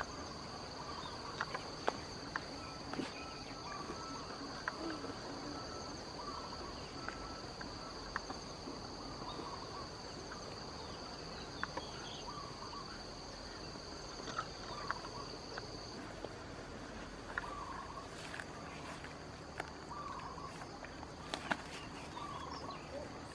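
Insects droning outdoors in two steady high-pitched tones that stop about two-thirds of the way through, with short chirps every second or two and occasional faint clicks.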